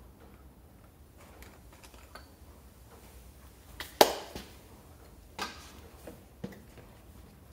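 Light clicks and taps of hands and tools working on a scooter engine, with a sharp knock about four seconds in and two smaller knocks over the next two and a half seconds.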